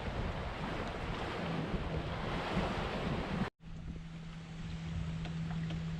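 Wind buffeting the microphone over the wash of small waves, until a sudden cut about three and a half seconds in. After the cut comes a quieter scene with a steady low hum.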